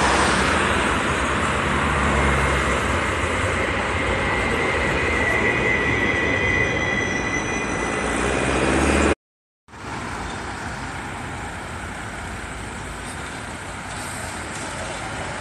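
Articulated tram rolling past close by on ballasted track, its wheels rumbling on the rails with a thin high wheel squeal for a few seconds partway through. After a sudden break about 9 s in, another tram is heard more faintly as it approaches.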